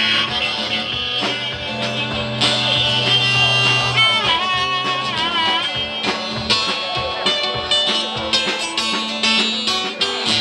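Live acoustic blues: an acoustic guitar strummed over a drum kit, with a wavering, bending lead melody a little before halfway.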